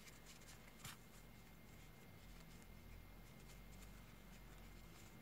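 Near silence with faint rustling and scratching as a yarn needle is worked through the stitches of a crocheted doll, and one small click about a second in.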